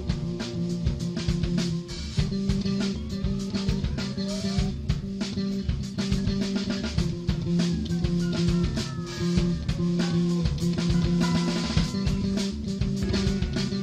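Background music: a band track with a steady drum beat, bass and guitar, the guitar lines sliding in pitch in the middle stretch.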